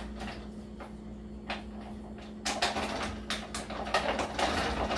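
Plastic pouch of BBQ jackfruit crinkling and rustling as it is squeezed out into a hot, dry skillet, with a few light clicks at first and denser, busier handling noise through the second half.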